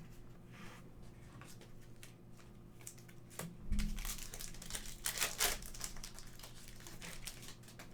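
Trading card pack wrapper crinkling and tearing open, in a cluster of rustles loudest from about three and a half to five and a half seconds in, with a soft thump near the start of it.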